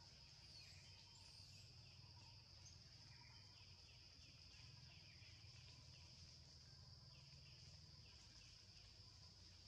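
Faint outdoor ambience: a steady high-pitched insect drone, with faint short chirps in quick runs and a low rumble underneath.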